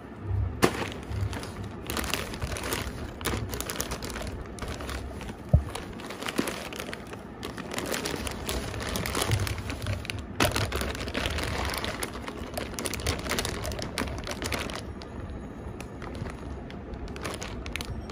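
Plastic food packaging crinkling and rustling as a packet of instant pasta is handled, with irregular sharp crackles. Two louder knocks stand out, one just after the start and the loudest about five and a half seconds in.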